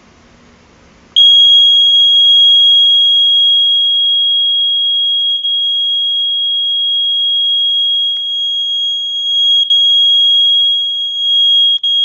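ESL 320 smoke alarm sounding its test alarm as the test button is held in: one loud, steady, high-pitched continuous tone that starts about a second in and runs unbroken, not pulsed.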